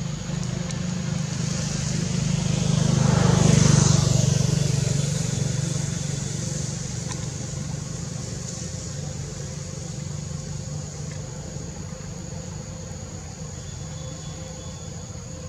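A motor vehicle's engine passing by: it grows louder to a peak about four seconds in, then slowly fades. Under it runs a steady high-pitched insect drone.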